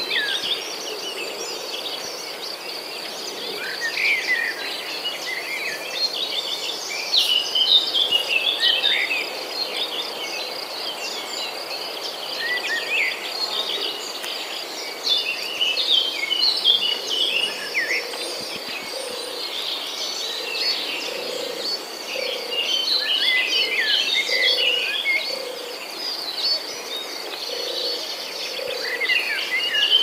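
A steady, high, fast-pulsing insect trill like a cricket chorus, with many bird chirps and calls over it that come in clusters. A lower call repeats through the second half.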